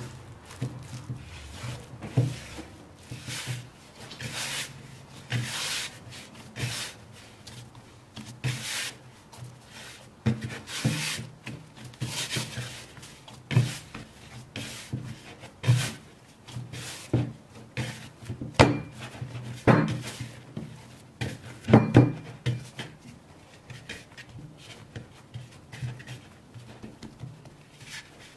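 Dough being mixed and kneaded in a wooden bowl: a spatula scraping and stirring through flour, then hands pushing, folding and pressing the dough. The work makes irregular soft knocks and rubbing against the wood, with the loudest knocks a little past the middle.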